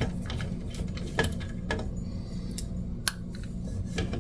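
Scattered light clicks and taps of small hard plastic and metal parts being handled, as a pinball machine's plastic Zeppelin toy is worked loose from the playfield.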